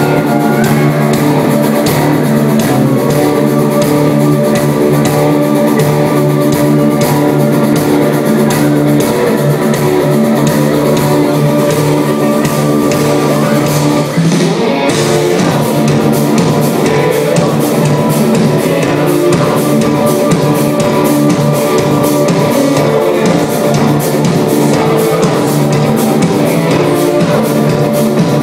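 Live rock band playing loud: electric guitars over a drum kit, the chords changing about halfway through.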